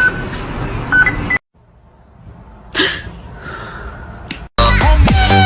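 Steady electronic beeping tones for about a second, then a quiet stretch with one short noisy burst, then loud electronic dance music starting near the end.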